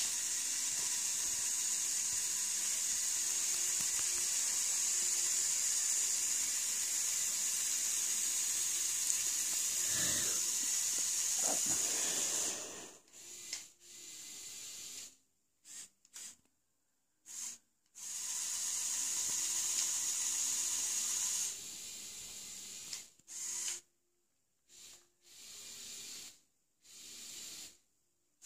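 Power Functions electric motors of a Lego Technic 42009 Mobile Crane running through its plastic gear trains as the boom is raised, giving a steady high whirring hiss. After about twelve seconds the motor stops, then runs again in short bursts of one to three seconds.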